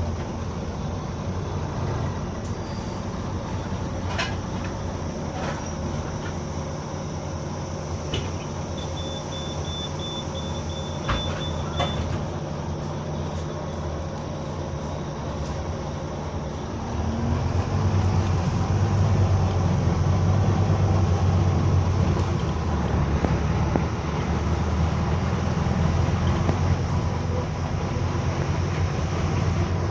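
Bus engine running with a steady low drone and the loud weird sound that is heard only while the engine is on. About seventeen seconds in, the engine gets louder and deeper and stays so. Near the middle, a thin high tone plays for about three seconds.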